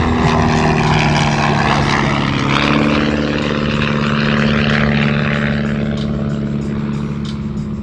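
Pitts S-1S aerobatic biplane's propeller engine passing by in a low pass. Its steady drone drops in pitch about two to three seconds in as the plane goes past, then fades a little.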